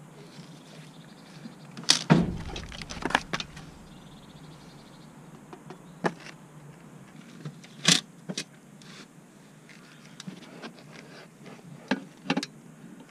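Scattered clicks, knocks and clunks of a new clutch disc and pressure plate being handled and set together, with a heavier thud about two seconds in.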